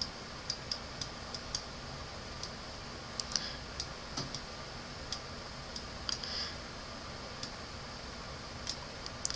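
Light, irregular clicks of the painting input device as the paint is dabbed on, several in quick succession in the first second or so and sparser after. A faint, steady, high hiss lies under them.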